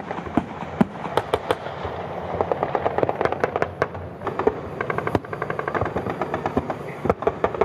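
Gunfire from a live-ammunition military exercise: many shots in quick, irregular bursts, with no steady rhythm.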